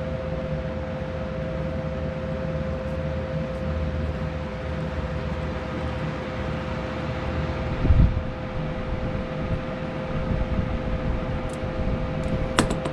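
Steady background machine hum with two pitches over a low rumble, with a dull thump about eight seconds in and a sharp click near the end.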